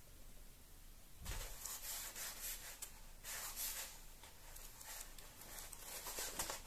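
Paper pages of a large hardcover comic album being turned by hand: soft rustling and sliding, a few times over.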